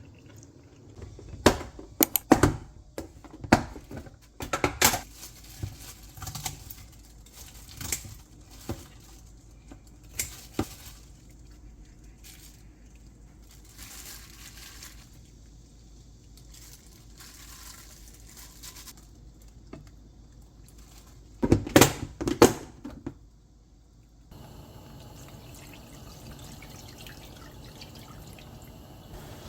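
Kitchen clatter: scattered sharp clinks and knocks of dishes and utensils, with a tight cluster of loud knocks about two-thirds of the way in. Near the end the sound changes abruptly to a steady low hum.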